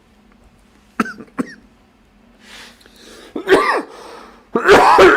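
A man's coughing: two short, sharp coughs about a second in, then two louder, harsher coughing bouts near the end. It is a lingering residual cough left over after two weeks of illness.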